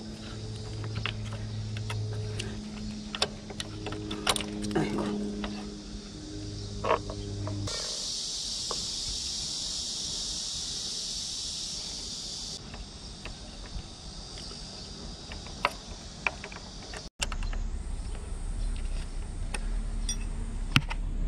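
Light metal clicks and clinks of a motorcycle footpeg, its spring and pivot pin being handled and fitted to the peg bracket, over a steady low hum. A high hiss runs for about five seconds in the middle.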